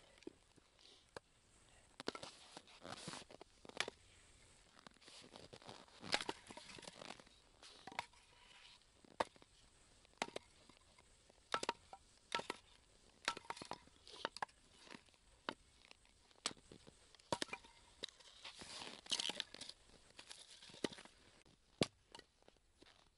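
A hatchet chopping and splitting firewood into kindling: a series of sharp, irregularly spaced chops with the wood cracking apart, roughly one a second.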